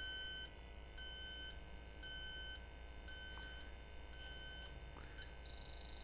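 Robinair LD7 refrigerant leak detector beeping in half-second tones about once a second. A little after five seconds in it switches to a higher tone pulsing rapidly, about ten times a second: its alarm speeding up as the probe picks up an R-134a leak on the coil.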